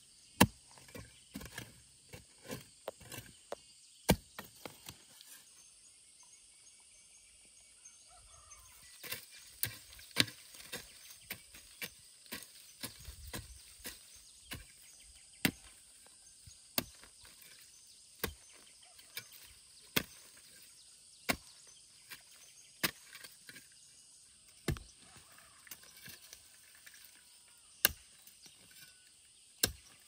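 Hand hoe chopping into hard, rooty soil: sharp single strikes, irregular at first, then settling into a steady stroke about every second and a half.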